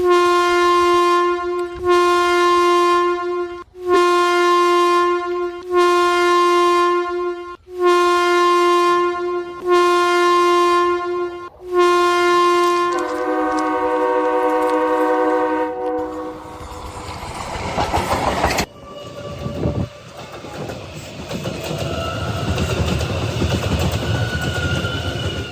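Train locomotive horn sounding in about seven evenly spaced blasts of the same chord, then one longer blast on a lower chord. The horn fades into the rumble and clatter of the train running past.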